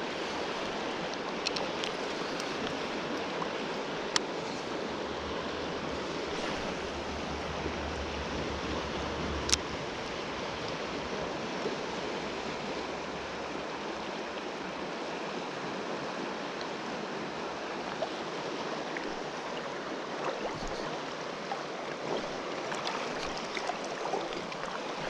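A flowing river rushing steadily, with a few brief clicks.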